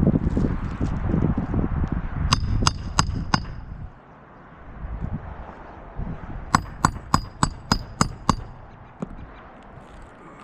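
Hand hammer driving roofing nails into asphalt shingles: a quick run of four ringing hammer blows, then a run of seven, about three a second. A low rumble fills the first few seconds.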